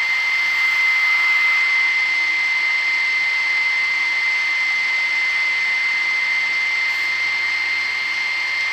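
Electric stand mixer running on high, its wire whisk beating thickened mayonnaise in a steel bowl: a steady, high-pitched motor whine.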